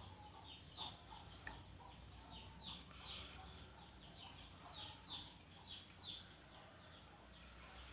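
Faint bird chirps, short high falling notes repeated irregularly about two to three times a second, with a light click about a second and a half in.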